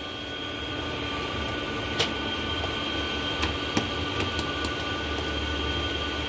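Steady hum of a UV DTF printer standing powered on, with several fixed tones over a low drone, and a few faint clicks as the laminate film is handled on the roller.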